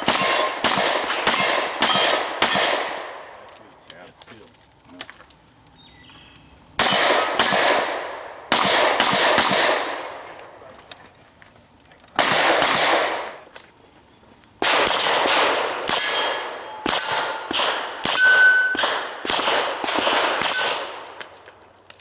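Revolver fired in several quick strings of shots with short pauses between them. Steel plate targets clang and ring as they are hit.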